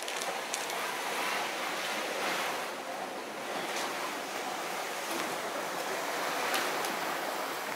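Ocean surf sound effect: a steady wash of waves that starts abruptly and cuts off abruptly, with a few faint clicks.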